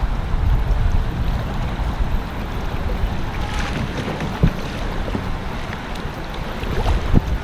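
Kayak moving on a rippling creek: running water and paddle splashes under wind buffeting the microphone, with two sharp knocks, about four and a half and seven seconds in.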